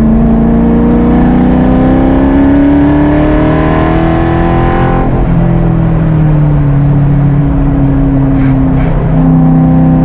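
Ford Coyote V8 in a Factory Five Type 65 Daytona Coupe, heard from inside the car at full track pace: the engine note climbs steadily under acceleration, drops sharply about halfway through, then holds at a lower, fairly steady pitch.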